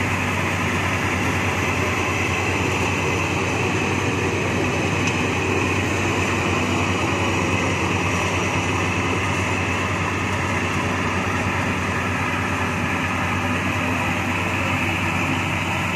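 Tracked rice combine harvester running steadily as it harvests, its engine and machinery making a constant, even drone.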